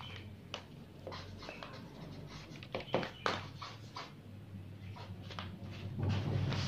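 Dry-erase marker writing on paper in short strokes, over a low steady hum. A louder rustle comes in near the end.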